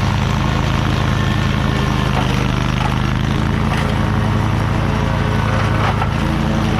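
Toro Titan Max zero-turn mower engine running steadily at mowing speed while cutting grass.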